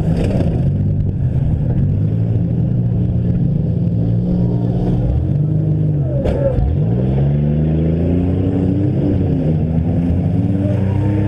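Several demolition derby engines running at once, revving so their pitch rises and falls against each other, with one sharp knock a little past halfway.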